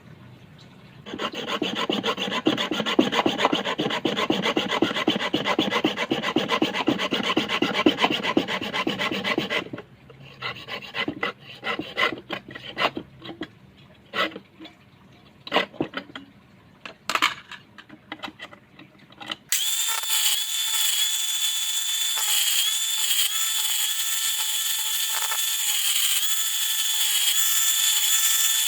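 Wood being worked by hand with fast, even back-and-forth strokes, like a saw or rasp, for about eight seconds, followed by scattered knocks and scrapes. About two-thirds of the way through, an electric drill motor starts and runs with a steady whine.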